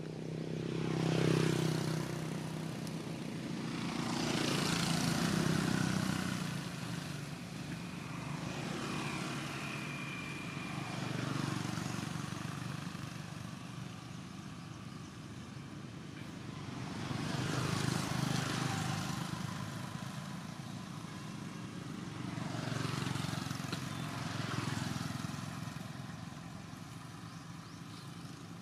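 Motor vehicles passing one after another on a nearby road, each engine swelling and falling away over a couple of seconds, about five passes in all, with a steady low engine hum between them.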